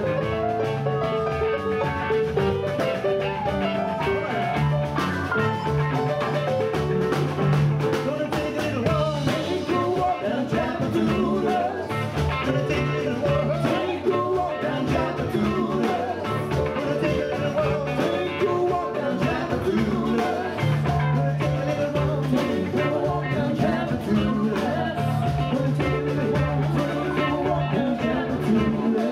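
Live blues band playing: electric guitars, bass, keyboard and drum kit, with singing.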